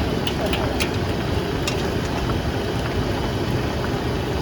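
Steady low rumble of a busy night-market food stall, with a few sharp clicks in the first two seconds.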